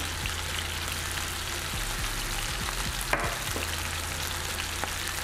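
Chicken breast pieces and minced garlic sizzling in hot vegetable oil in a nonstick skillet: a steady frying hiss with small crackles.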